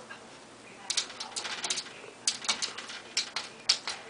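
A dog's claws clicking and scratching on a hard surface as it paws and scrabbles: irregular sharp ticks, some in quick runs, starting about a second in.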